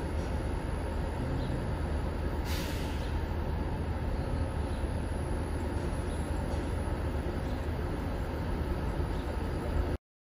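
Emergency vehicles idling on a city street: a steady low engine rumble with traffic noise, and a short burst of hiss about two and a half seconds in.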